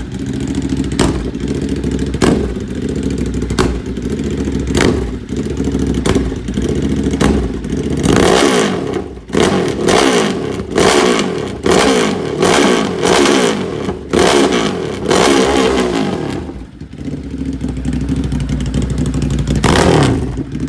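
Ducati Hypermotard SP's 937 cc L-twin running through a freshly fitted SC Project CRT exhaust. It idles with short throttle blips about once a second, then is revved hard six or seven times in quick succession in the middle, drops back to idle, and gets one more rev near the end.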